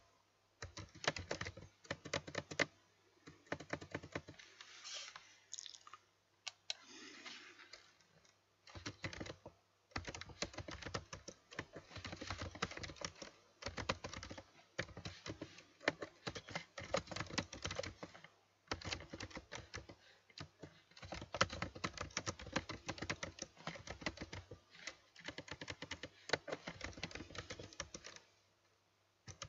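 Computer keyboard being typed on in fast runs of keystrokes, broken now and then by short pauses of about a second.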